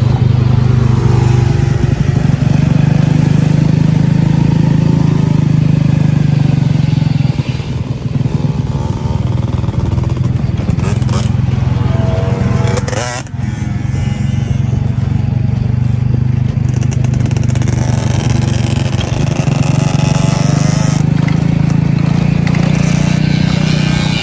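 Enduro dirt bike's engine running steadily under load while riding, with the throttle easing off briefly about a third of the way in and again a little past the middle.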